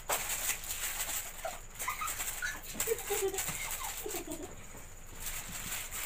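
Crinkling and rustling of empty chip packets and plastic wrappers being gathered up by hand, with a few short stifled giggles in the middle.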